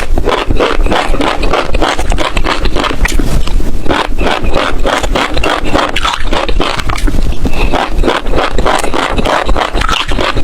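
Close-miked mouth sounds of chewing passion fruit seeds: a steady run of crisp, cracking crunches, several a second, as the seeds are bitten and crushed.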